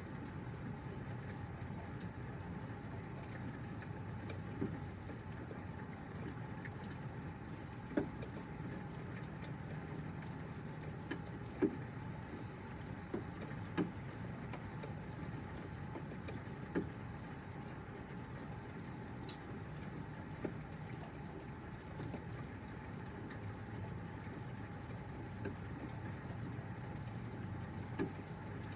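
Steady rain falling, with sharp drip taps at irregular intervals.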